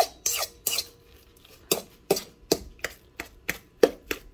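A fork scraping and clinking against a stainless steel mixing bowl, stirring a damp, crumbly mix of ground pork rinds and water. About ten quick strokes, with a pause of about a second shortly after the start.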